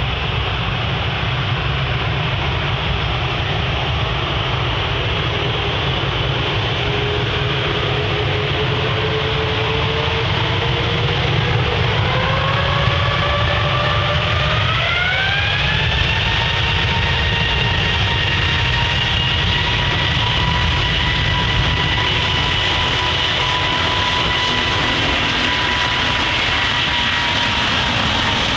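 Boeing jet airliner's engines spooling up for takeoff: a loud, steady rush of engine noise with a whine that climbs in pitch from about six seconds in until about sixteen seconds in, then holds steady at full power.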